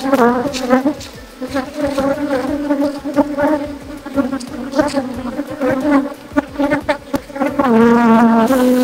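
Honey bees in flight buzzing loudly close by, many at once. Individual bees pass with a rising and falling pitch, over a few light clicks.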